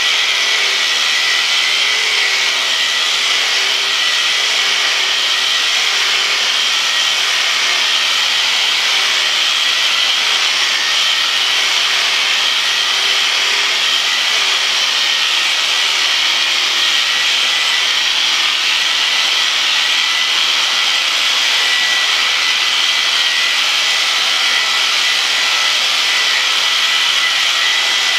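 Electric sheep shears running steadily with a constant high buzz, the handpiece cutting through a ram's wool fleece.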